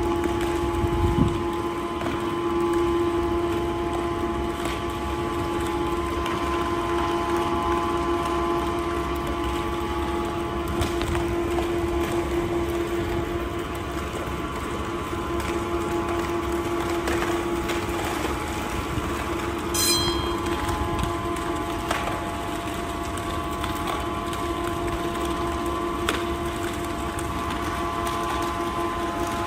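Dam gantry crane hoist running steadily as it lifts a steel stop log out of the gate slot, a constant machine hum with a steady whine over it. A brief high squeak about two-thirds of the way through.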